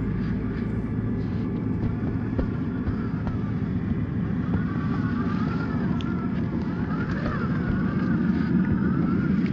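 Traxxas TRX-4 RC crawler's electric motor and geared drivetrain whining as it crawls through snow, the pitch rising and falling with the throttle.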